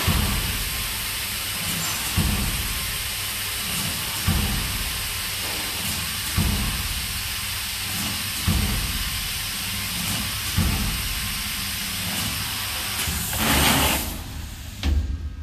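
Rubber gasket cutting machine running with a steady hiss and hum as it slices an NBR rubber tube into rings, with a low knock about every two seconds. Near the end there is a louder rush of noise and a thump as the cut gaskets are taken off the mandrel by hand.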